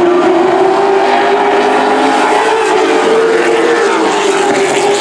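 Super truck race engines running on a short oval track, one strong engine note that slowly rises in pitch and eases slightly near the end.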